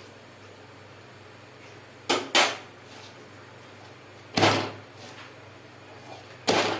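Four sharp knocks from handling a bhakri and utensils on a tawa: two close together about two seconds in, one at about four and a half seconds, and one near the end.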